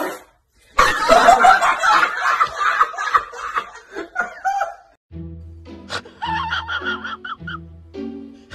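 A man laughing hard and loud for about four seconds. About five seconds in, background music with a steady bass line starts.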